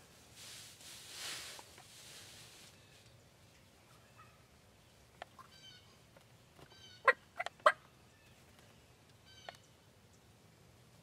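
Wild turkey toms gobbling: a few faint calls, then a loud burst of three rapid gobbles about seven seconds in, and one more faint one near the end.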